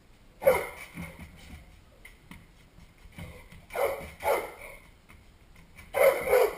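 A dog barking in short, loud single barks and pairs: once about half a second in, twice just before the midpoint, and once more near the end.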